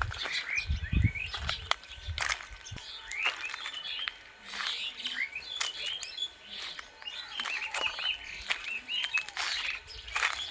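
Several small forest birds chirping, with many quick rising-and-falling chirps that overlap throughout, and scattered sharp crackles among them.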